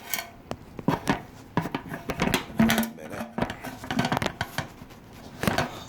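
Handling noise: irregular knocks, taps and clatter as a phone is being positioned and propped up to film.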